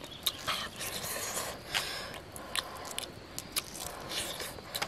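Eating sounds: soft clicks and short scrapes as peeled boiled eggs are handled and bitten into.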